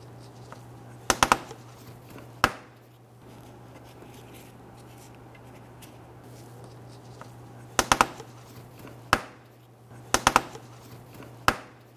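Sharp plastic clicks and knocks as a Toyota RAV4's plastic splash guard and underbody shield are pressed and fitted into place by hand. They come six times, several in quick groups of two or three.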